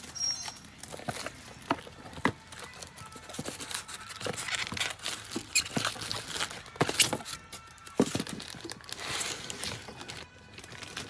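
Unboxing noise from a cardboard carton: plastic wrapping crinkling and rustling, with frequent sharp knocks and scrapes against cardboard and a polystyrene insert.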